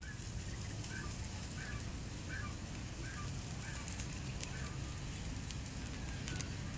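Small wood fire burning under a spit-roasted duck, with a steady low rumble and a few faint crackles. A faint short chirp repeats about seven times through the first few seconds.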